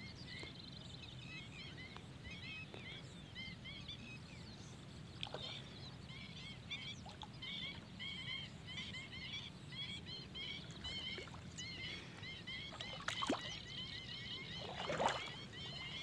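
Birds chirping over and over in short, high calls, over a low steady rumble of wind. Near the end come a few louder splashes in water, the loudest about a second before the end.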